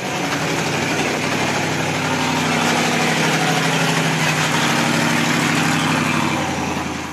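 Modified Jeep rock crawler's engine running steadily under load as the Jeep crawls up a steep rock ledge, easing off near the end.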